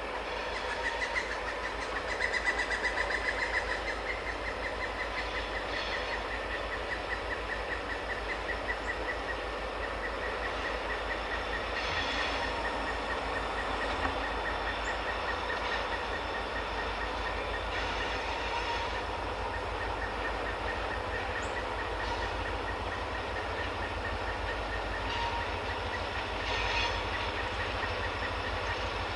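Escanaba & Lake Superior diesel freight locomotive approaching from a distance, its engine running steadily with a thin high whine over it.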